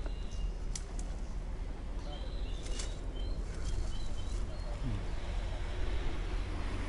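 Outdoor ambience on a handheld microphone: a steady low rumble, a few sharp snaps of footsteps and brush, and a bird chirping a run of short high notes in the middle.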